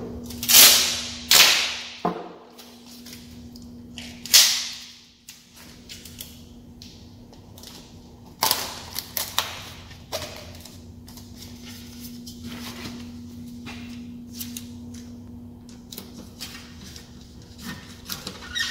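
Tape pulled off a roll in several quick rasping rips, used to cover pinholes in a screen-printing screen's emulsion, with smaller handling clicks between them. A steady low hum runs underneath.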